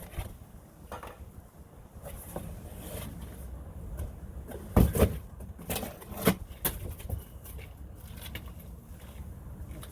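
Knocks and clunks of snow pusher parts being handled and unpacked, with a cluster of loud knocks about five seconds in and a few lighter ones just after.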